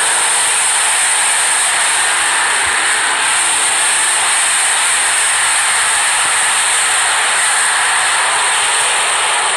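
Loud, steady hissing noise like TV static, even and unchanging, with no pitch or rhythm.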